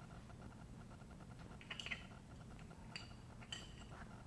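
Faint, scattered clicks and light taps of the aluminium gas-valve housing and diaphragm parts being handled, a few in about four seconds, over a low steady hum.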